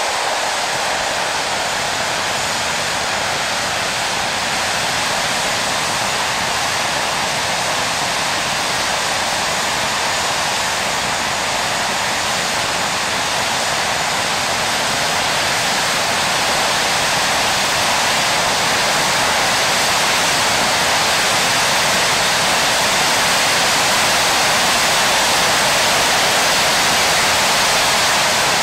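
BAC Lightning F.6 jet engine running steadily on the ground, a loud, even roar that grows slightly louder about halfway through. Only one of the two engines is running, and without afterburner.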